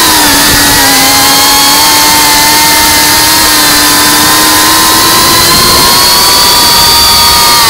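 FPV quadcopter's brushless motors and propellers whining loudly as heard from its onboard camera, over a steady rush of wind noise. The whine's pitch dips about a second in and climbs again near the end as the throttle changes.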